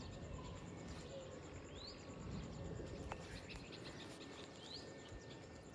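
Faint birdsong: a short, high, rising chirp about two seconds in and again near the end, over low background noise.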